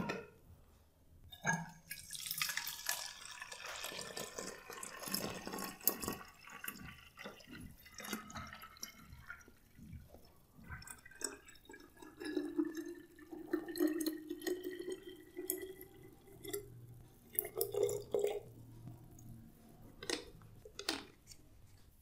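Water running from a tap into a bottle, the ringing pitch inside the bottle rising slowly as it fills. It comes as two pours with a short break between them, then a few drips near the end.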